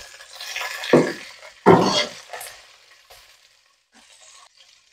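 Slotted spatula stirring and scraping sliced aromatics, tomato and petai as they sizzle in hot oil in a wok. Two louder scrapes come about a second in and just before two seconds. The sizzle dies down after about three seconds.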